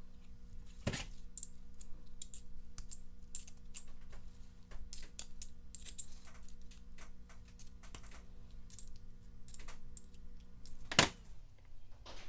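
Small irregular clicks and taps of hands working a tiny seal into a speedometer pinion gear sleeve, with a louder click about a second in and a sharp knock near the end. A steady low hum runs underneath.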